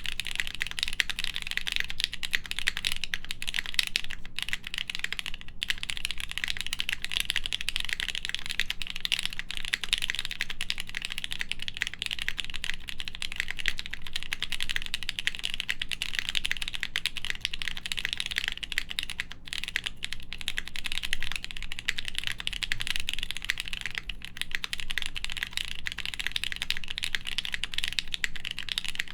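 Continuous typing on a Studio Kestra Nue mechanical keyboard, built without a plate and fitted with H1 switches lubed with Krytox 205g0 and GMK keycaps. The keystrokes form a dense, unbroken stream of clacks.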